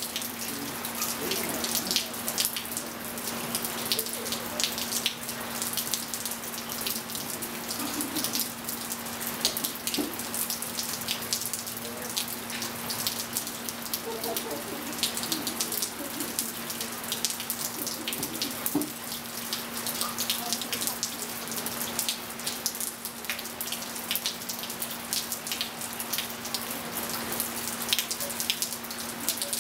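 Steady rain falling on a swimming pool's surface and wet patio tiles: a dense, even spatter of drops, over a steady low hum.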